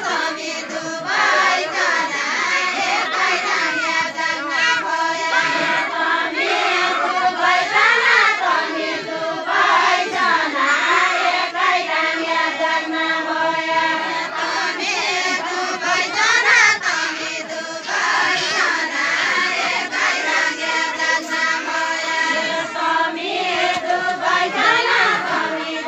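A group of voices singing a Nepali deuda folk song together, a chant-like melody carried in phrase after phrase, with crowd chatter underneath.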